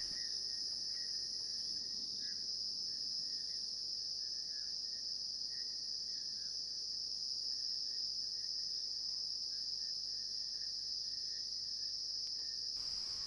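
Steady high-pitched insect chorus, with faint scattered chirps underneath.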